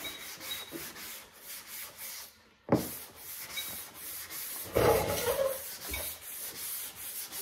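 Hand block sanding on a primed truck body panel: sandpaper on a sanding block rubbed back and forth in steady strokes to take down the guide coat. The strokes stop briefly just before 3 s, then a sharp knock, and the rubbing resumes, louder for a moment around 5 s.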